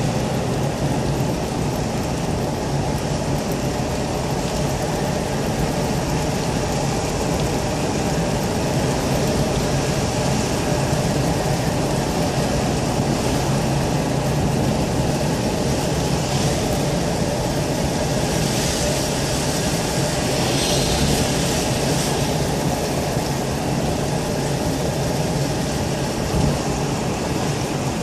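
Steady car-cabin noise while driving on a wet road: engine and tyre rumble under a constant hiss. The hiss grows louder for a few seconds past the middle, and there is a small thump near the end.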